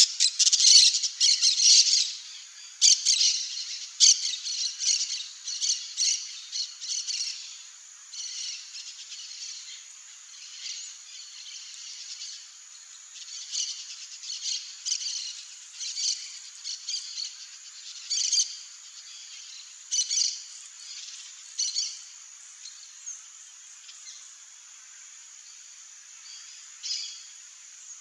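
Birds calling in the background: many short, sharp, high-pitched calls, dense and loud for the first several seconds, then thinning to scattered single calls and short bursts.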